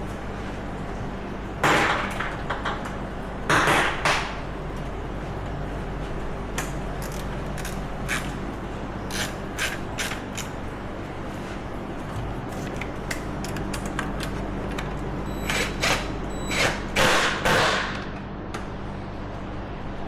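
A socket ratchet clicking in short, irregular runs as a bolt is turned, with a few louder metallic clatters of tools or parts. A steady low hum runs underneath.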